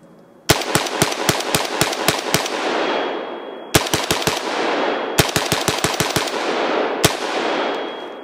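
Rifle fired rapidly: a string of about a dozen shots, two shorter strings, then a single shot, each followed by a long fading echo.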